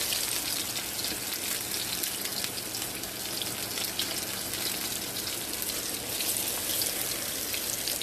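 Breaded summer squash slices frying in hot oil in an iron wok: a steady sizzle with many small crackling pops.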